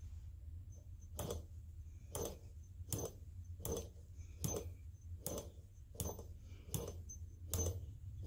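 American Bosch FX-1 magneto clicking at a steady pace, about one click every 0.8 seconds, as its timing gear is turned by hand.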